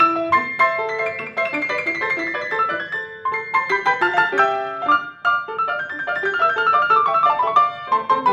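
Grand piano played solo in a fast, densely packed passage, with many quick notes through the middle and upper range.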